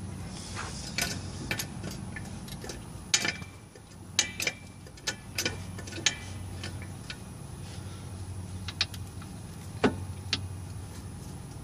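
Irregular light metallic clicks and clinks from hands and parts being worked at a car's lower control arm and its mounting bolt, over a steady low hum.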